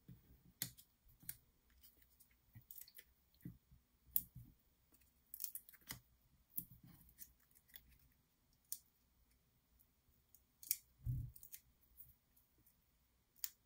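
Faint, scattered clicks and taps of small cardstock die-cuts and adhesive dots being handled and set down on a wooden tabletop, with one soft low thump about eleven seconds in.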